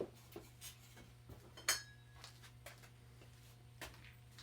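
A few small, scattered metallic clinks and knocks of objects being handled, the loudest about 1.7 s in with a short ring, over a steady low hum.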